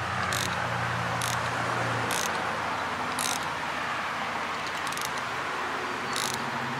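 Small hand ratchet clicking in short bursts, about one a second, as the water temperature sender is tightened into a Mercury outboard's engine block, over a steady low hum.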